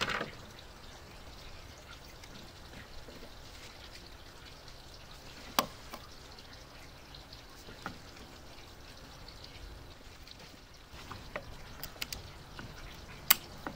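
Scattered sharp plastic clicks and knocks as garden-hose quick connectors are fitted onto the inlet and outlet of a drill-driven pump. The loudest snaps come about five and a half seconds in and just before the end, over a faint steady hiss.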